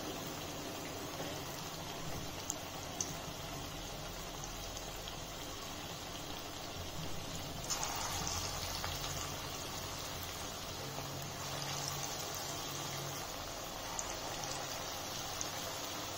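Spinach and onion fritters (palak bhajji) deep-frying in hot oil in a kadhai, a steady sizzle and bubbling. About eight seconds in, the sizzle briefly gets louder as another dollop of batter is dropped into the oil.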